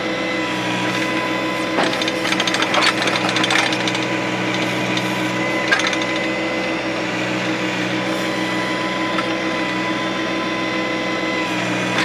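John Deere 1025R compact tractor's three-cylinder diesel running steadily while its 260B backhoe digs, holding a constant hum. Between about two and four seconds in, and once more near six seconds, the bucket scrapes and clatters through hard, rocky soil.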